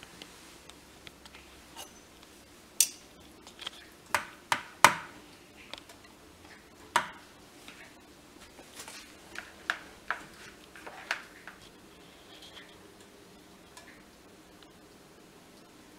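Kitchen tongs clinking and tapping against a ceramic plate and bowl while a fish fillet is floured and dipped in batter: a scatter of sharp clinks, the loudest between about three and five seconds in and another near seven seconds, then lighter taps.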